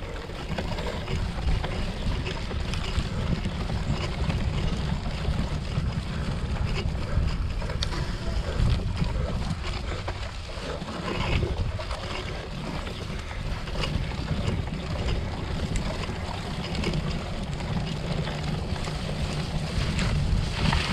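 Steady rumble of wind buffeting the microphone while a cyclocross bike is ridden at race pace over rough ground, with scattered faint clicks and rattles.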